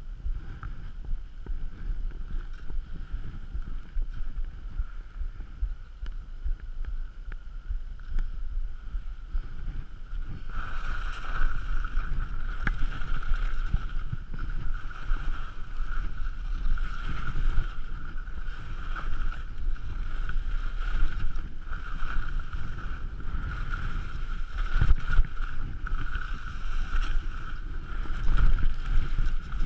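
Wind buffeting the camera's microphone and skis sliding over snow during a downhill run: a steady low rumble with a high whistle over it. It grows louder about ten seconds in, with a few sharp knocks near the end.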